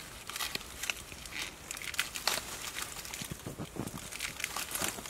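Stiff wild pineapple leaves rustling and crackling in irregular bursts as hands push through them and a knife cuts at the base of the fruit.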